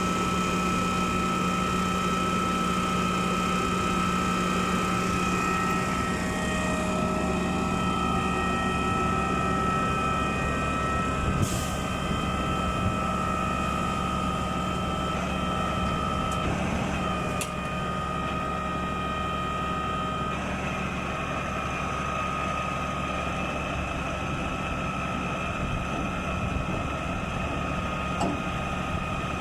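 Putzmeister 42-5 truck-mounted concrete pump running steadily: a constant engine drone with a steady high whine over it, and a couple of brief clicks partway through.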